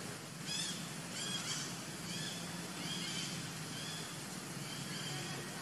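An animal calling over and over: a series of short, high calls, each rising and then falling, about one every three quarters of a second. The first few are the loudest. A steady low hum and hiss run underneath.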